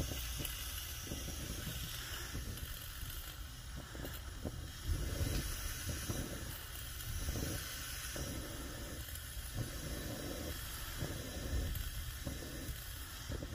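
Coleman 508 single-burner white-gas stove burning as it warms up with a tall yellow flame: a steady hiss with uneven low, fluttering surges of the flame.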